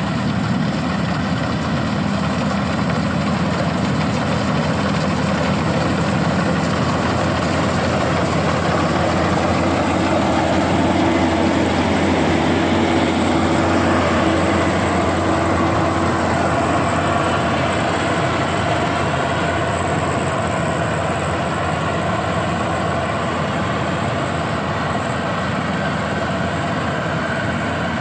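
Rice combine harvester running steadily in a wet paddy, a low engine drone with a thin high whine over it, swelling a little louder around the middle.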